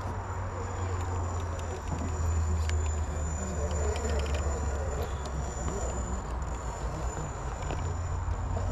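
Class 2 Flatgekko RC rock crawler creeping over rocks: a steady low hum with a thin high whine from the drivetrain, and small clicks of tyres and stones on rock and gravel.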